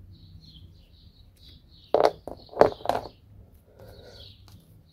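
Hard plastic figurine parts knocking and clicking against each other as they are handled, three or four sharp knocks about two to three seconds in. A bird chirps repeatedly in the background.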